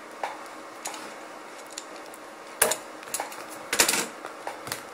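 Hands handling a cardboard box on a wooden shelf: a scatter of short taps and knocks, the loudest about two and a half seconds in and a cluster of them near four seconds.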